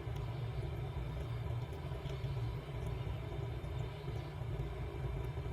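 Steady low background rumble, with a few faint light clicks over it.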